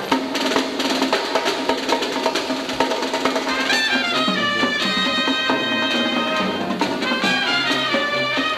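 Youth marching band playing: trumpets and sousaphones over quick drum strokes, in a busy, accented up-tempo passage. About four seconds in, the pitched parts slide downward together in a falling glide.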